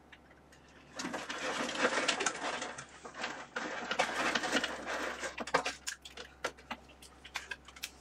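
Oscilloscope probe leads being picked up and handled: rustling and rattling with many small clicks, busiest from about a second in until just past halfway, then a few scattered clicks.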